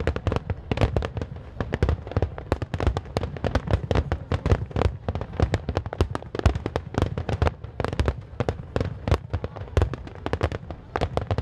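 Aerial fireworks going off in a dense barrage: a rapid, unbroken run of sharp bangs and deep thumps, many a second.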